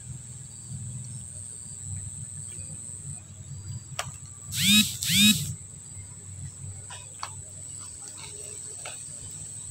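A steady high-pitched insect trill, like crickets, over the low rush of a shallow flowing stream. About halfway, two short loud calls with an arched, rising-then-falling pitch come half a second apart, with a few faint clicks later.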